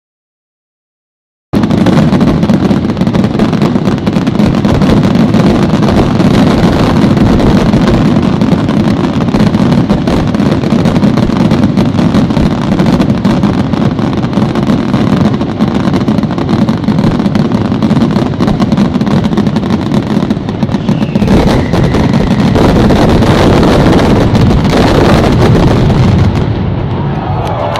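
Fireworks display's final barrage: a dense, continuous rumble of firework bursts and crackles packed so tightly that they merge, very loud on the microphone. It starts abruptly about a second and a half in and eases off near the end.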